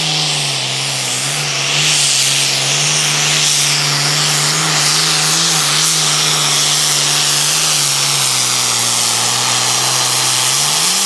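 Diesel engine of an International Harvester Super Farm pulling tractor running at full throttle under heavy load while pulling the sled, with a steady high-rpm note and a loud hiss over it. About eight seconds in, the engine note sags as the load bogs it down, then climbs sharply near the end.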